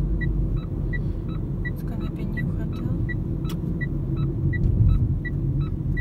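Car road rumble heard from inside the cabin while driving, with the turn-signal indicator ticking steadily about three times every two seconds.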